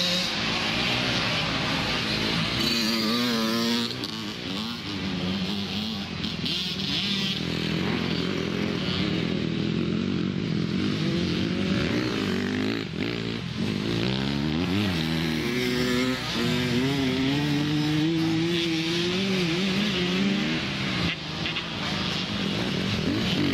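Several youth motocross bikes racing, their engines revving up and falling back as they accelerate and shift, with more than one bike heard at once at times.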